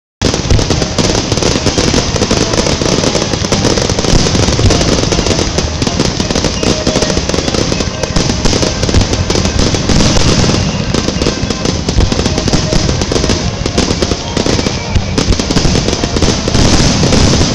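Fireworks display going off in rapid succession: a dense, unbroken run of crackling, popping and bangs from many shells and fountains at once.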